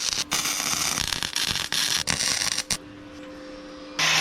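Flux-core MIG welding: a crackling, sputtering arc in short runs with brief breaks. It stops a little under three seconds in, leaving a faint low hum.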